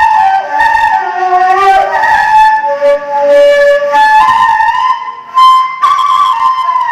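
Arabic ney, an end-blown reed flute, playing a slow improvised melody with a breathy tone, the line stepping down and then climbing back up, with a short breath pause about five seconds in.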